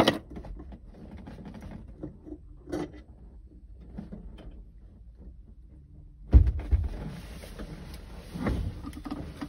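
Light clicks and taps of metal shift-linkage parts being handled, then a heavy thump about six seconds in, followed by rustling movement and another thump.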